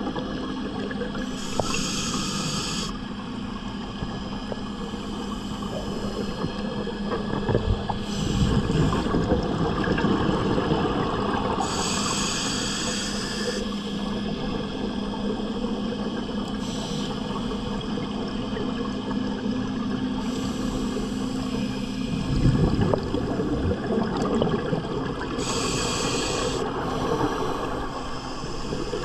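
Scuba regulator breathing underwater: long hissing inhalations at intervals of about ten seconds, with rumbling exhaled bubbles between them. A steady low hum runs underneath and stops about 22 seconds in.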